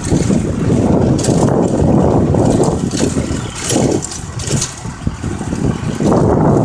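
Engine of a ploughing farm vehicle running, an uneven low rumble that eases a little about two-thirds of the way through before building again.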